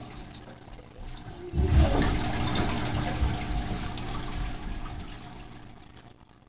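Water rushing and splashing in an aquarium tank. It grows sharply louder about a second and a half in, then slowly dies away.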